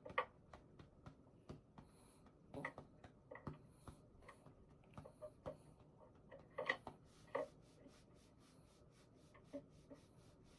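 Quiet computer keyboard typing: scattered, irregular soft key clicks, with a couple of slightly louder taps around the middle.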